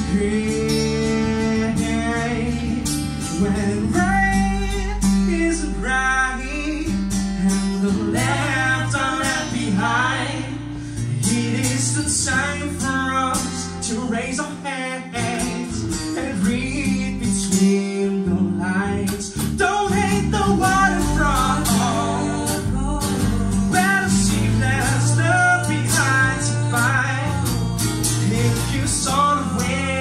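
Live acoustic band music: strummed acoustic guitar with sung vocals throughout.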